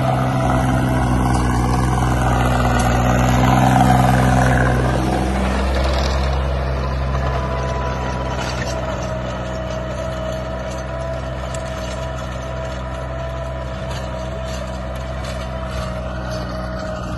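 Tractor engine running steadily under load while pulling a rotary tiller through soil, with a steady whine over the engine note. It is louder in the first five seconds, then a little quieter.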